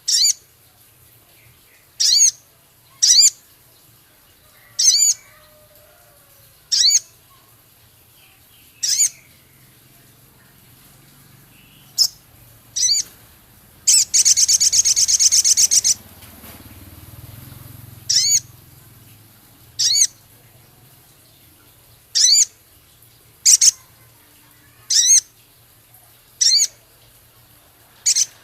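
Male sogon bird giving short, sharp, high call notes every second or two, with a harsh, rapid rattling chatter for about two seconds midway (the rough 'crecet' chatter).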